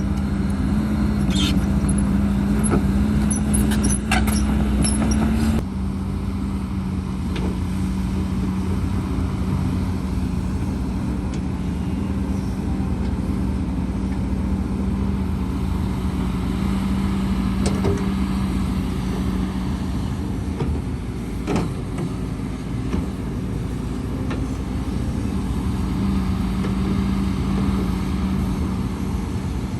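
Heavy diesel construction machinery running steadily with a constant drone, dropping a little in level about five seconds in, with a few short sharp knocks.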